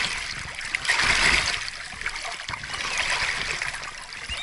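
Water splashing in a few uneven strokes as a small boat is paddled round to turn.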